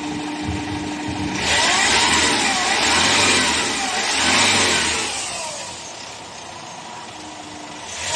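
Hyundai H100's common-rail diesel engine running after a start: revved up about a second and a half in, then dropping back to a quieter idle for the last few seconds. It now runs well; the hard starting and low power came from a single faulty injector.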